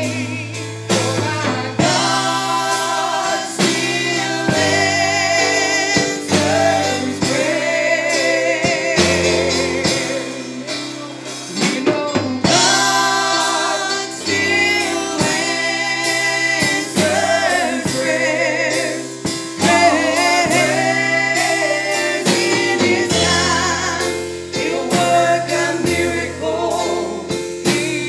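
A gospel song: women singing with vibrato into microphones over an instrumental accompaniment with a steady bass line.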